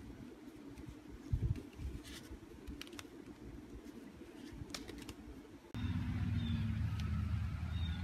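A deck of playing cards being cut and flourished in the hands: scattered soft clicks and card snaps, with one louder thump about a second and a half in. About six seconds in, the sound switches abruptly to a louder steady outdoor rumble with a bird calling.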